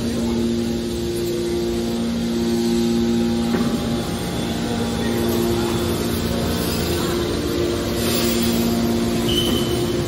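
Y81T hydraulic scrap metal baler's power unit running: a steady machine hum from its electric motors and hydraulic pumps, with a two-note whine that drops out and comes back a few times, around two, three and a half, and nine and a half seconds in.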